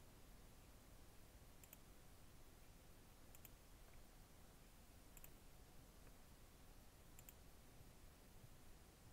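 Four faint computer mouse clicks, each a quick pair of ticks, spaced about every two seconds over low steady hiss.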